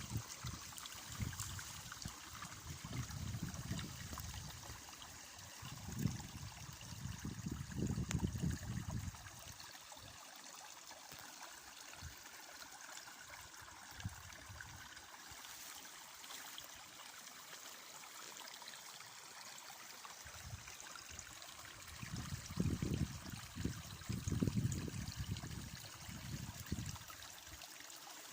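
Small stream running and trickling steadily. Low irregular rumbles come and go through the first third and again near the end.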